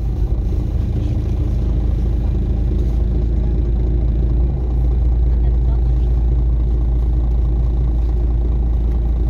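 Steady low engine rumble of a bus heard from inside the passenger cabin while the bus stands nearly still, growing a little louder about halfway through.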